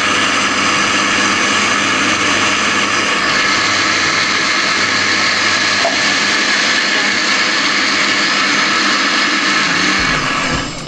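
Countertop blender running steadily, blending fruit, spinach and water into a green smoothie; it switches off about ten seconds in and winds down.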